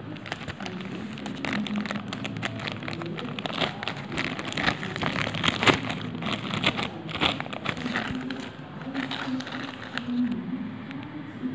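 Plastic courier pouch crinkling and crackling irregularly as it is handled and turned over.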